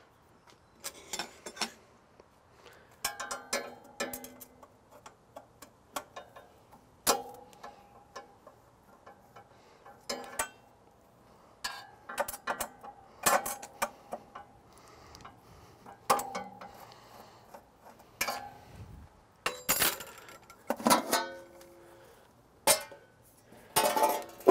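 Irregular metal clinks and clicks, several with a short ring, as the stainless steel hinge shroud of a kamado grill is unbolted and lifted off.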